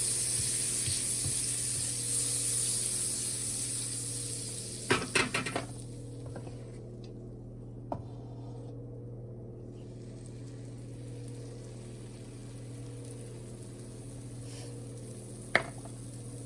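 Butter sizzling in a hot pan, the hiss strong at first and dying away after about five seconds. A quick rattle of a utensil against the pan comes about five seconds in, with single clinks later, over a steady low hum.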